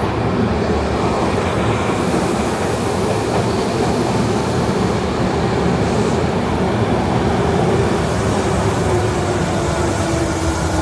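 Electric train running through the station: a steady, loud rumble and rattle, with a motor whine that slowly drops in pitch over the second half.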